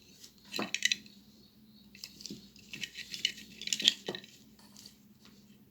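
Light metallic clicks and clinks in a few short clusters, from a soldering iron and small tools being handled while a broken wire inside a mobile phone charger is soldered.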